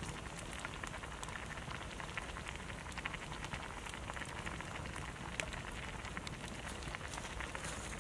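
Broth boiling in a metal wok over a wood fire: a steady bubbling hiss with many small, quick pops and crackles.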